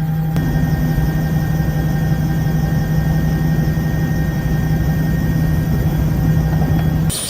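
Offshore helicopter's engine and rotors running in flight, heard from inside the cabin: a steady loud drone with a constant low hum. It cuts off suddenly near the end.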